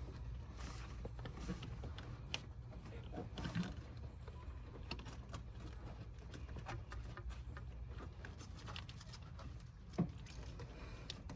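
Faint clicks and scrapes of a quick-disconnect tool and plastic heater hose fitting being worked loose, with two sharper knocks, one about a third of the way in and one near the end, over a steady low hum.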